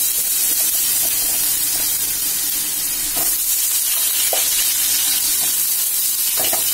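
Freshly added potato slices frying in hot mustard oil in a kadai: a steady high sizzle, with a few small crackles from the oil.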